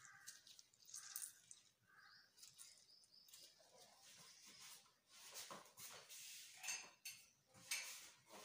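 Faint squeaks and small clicks of a plastic hand-press lemon squeezer being squeezed over a bowl.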